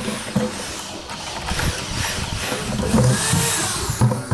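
Corded electric drill running, driving a screw through a plastic tub into a wooden board, its motor pitch rising and falling.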